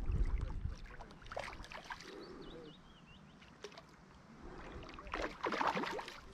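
Hooked trout splashing at the water surface as it fights close to the bank, in two spells of splashing, the louder one near the end.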